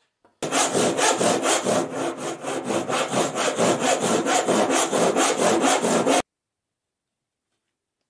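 Hand saw ripping down into the end grain of a small softwood batten to cut a tenon cheek, in quick, even strokes about four a second. It stops abruptly about six seconds in.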